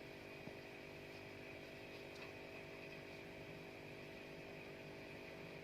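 Faint, steady mechanical hum of a running motor, with a steady higher whine above it.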